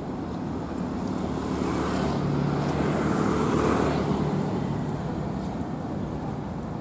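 Motor scooter riding past, its engine growing louder to a peak a few seconds in and then fading as it goes by, over steady traffic noise.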